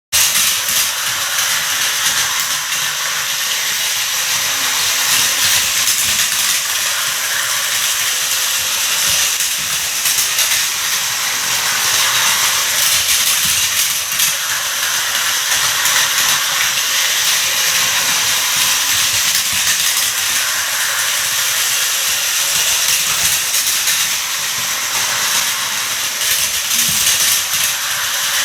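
A Plarail battery-powered toy train running on its plastic track: a steady, even, high hiss-like rattle that starts abruptly.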